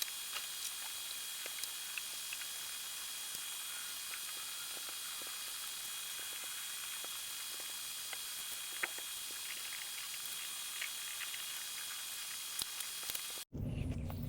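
A steady high-pitched hiss with a thin whistle-like tone in it and scattered small ticks, cut off abruptly near the end.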